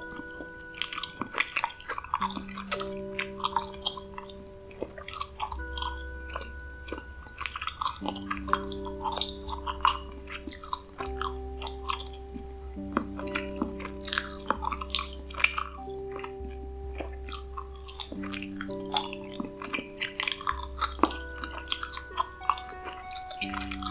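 Close, wet gum-chewing mouth sounds: many quick clicks and smacks, over slow ambient music of held chords that change every few seconds above a low drone.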